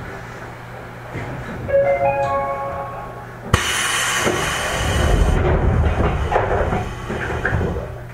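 JR East 205 series electric train standing at a station. A short chime of ascending tones sounds about two seconds in. Then comes a sharp clunk and about four seconds of rushing compressed air, typical of the train's pneumatic equipment at a stop.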